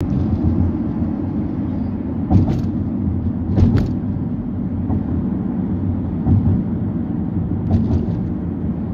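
Steady tyre and road rumble heard inside a moving car's cabin, with a few short knocks about two and a half and three and a half seconds in and again near the end.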